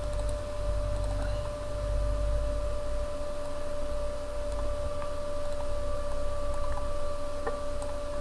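Steady electrical hum with a low rumble and hiss from the recording setup, broken by a few faint clicks of a computer mouse.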